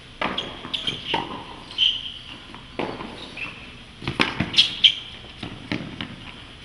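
Tennis rally on a hard court: a series of sharp pops as the ball is struck by racket strings and bounces off the court surface, with short high squeaks between the hits.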